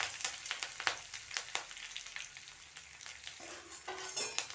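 Curry leaves and ground garlic-cumin-pepper paste sizzling in hot groundnut oil in a kadai for a rasam tempering, with many sharp crackles. The sizzle dies down over the few seconds.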